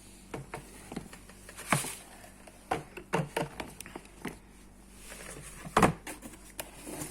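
Handling noise from a new sneaker being turned over and handled: a string of irregular knocks, taps and rustles, with two louder knocks about two seconds in and near the end.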